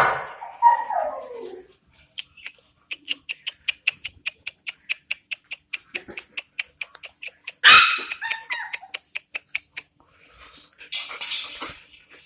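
Labrador puppies yelping and barking: a falling yelp at the start, then a quick, even run of short high-pitched sounds, and louder yelps about eight seconds in and again near the end.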